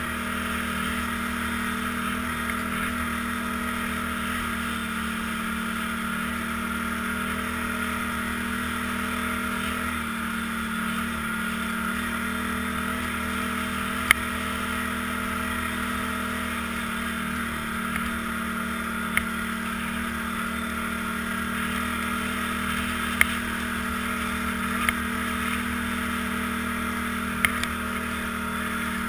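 ATV engine running at a steady cruising speed, an even drone that hardly changes pitch. A few sharp clicks now and then stand out above it.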